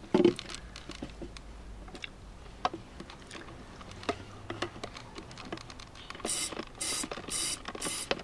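Hand pump on a small bottle, used as a fluid extractor to draw old brake fluid out of a car's master cylinder reservoir. There is a clunk at the start and scattered clicks as it is handled, then from about six seconds in a rhythmic hiss of air with each pump stroke, about three strokes a second.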